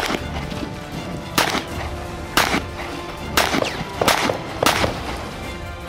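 Smith & Wesson Model 625 .45 ACP revolver firing six shots, about a second apart at first and quicker near the end, over background music.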